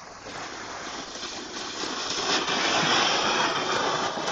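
A sled sliding fast down a packed-snow hill, a rushing hiss that builds steadily and is loudest about three seconds in.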